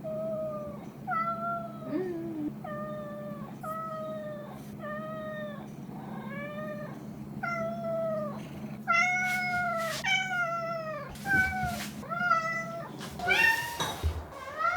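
Domestic cat meowing over and over: a quick string of short meows, each dipping in pitch at its end, getting louder about two thirds of the way through.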